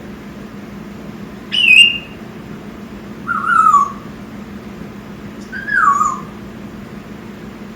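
Young African grey parrot giving three whistled calls a couple of seconds apart, each falling in pitch; the first is the highest and loudest.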